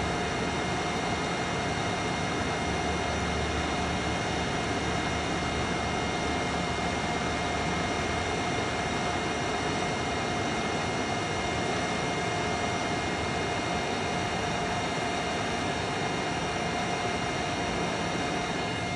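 Hot air rework station blowing steadily on a processor chip to melt its solder pins onto the board: an even rush of air with a faint steady whine running through it.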